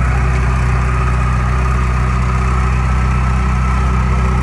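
Ferrari 488 Spider's twin-turbo V8 idling steadily through an aftermarket Novitec exhaust.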